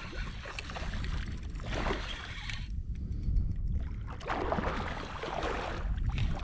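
A hooked pike splashing at the water's surface in three surges while being played on a spinning rod, over a steady low rumble of wind on the microphone.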